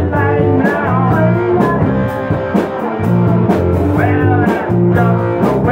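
Live rock band playing: guitars over bass notes, with drums keeping a steady beat.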